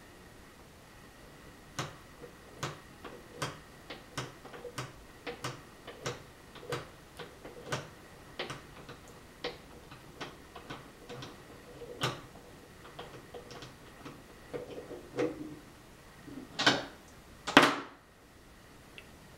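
Cat at a bathtub drain making a slow, irregular series of sharp little clicks and taps, about one a second, ending with two louder knocks.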